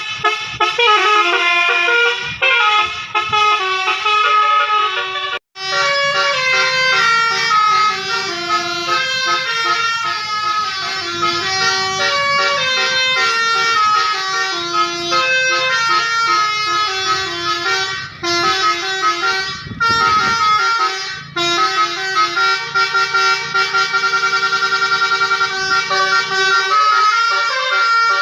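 Basuri multi-tone bus air horn (telolet) playing a fast melody of short stepping notes, with a sudden brief break about five seconds in. A low steady hum runs beneath much of it.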